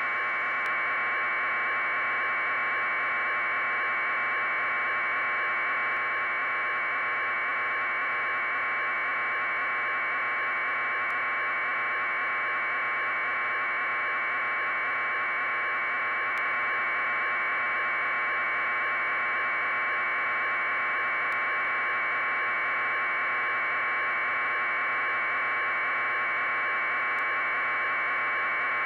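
Steady, unchanging hiss like radio static, squeezed into a narrow mid-pitched band, with a faint tick about every five seconds.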